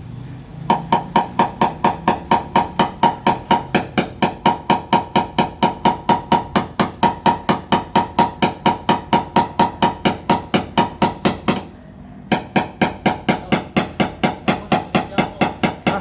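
Rapid, even hammer taps on the sheet-metal tailgate panel, about four or five a second, each with a short metallic ring, as a dent is worked out. The tapping stops briefly about twelve seconds in, then carries on.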